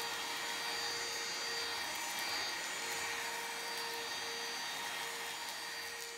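Catchwell C6 Plus cordless stick vacuum running as it is pushed over the floor: a steady, quiet motor whir with an even hiss and a faint hum.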